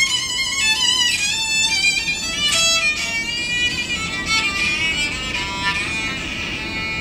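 Solo violin melody bowed on an electric violin, moving from note to note, with some held notes wavering in vibrato near the end.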